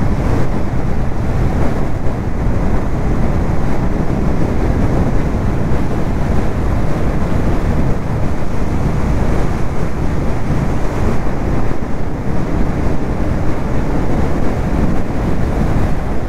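Steady wind rush buffeting the camera's microphone on a moving motorcycle, a loud, even roar with the motorcycle's running buried beneath it.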